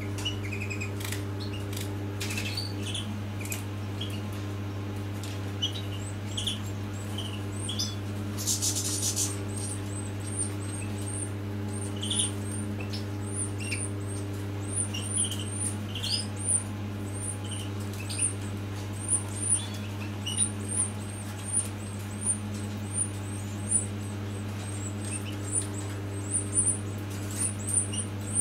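Finch nestlings cheeping in short, high begging calls while an adult finch tends them at the nest. The calls come faster and louder from about halfway on. There is a brief rustle about eight seconds in and a steady low hum underneath.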